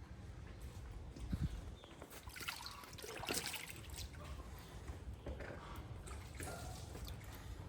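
Water sloshing and trickling as a small monkey plays in it, with a cluster of splashes around the middle.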